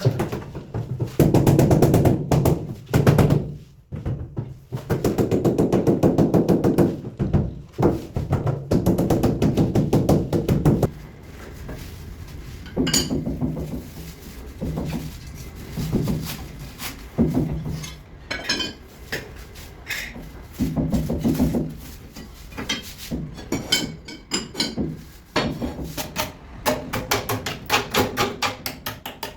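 Music with percussion: a pitched melody over rapid, knocking beats.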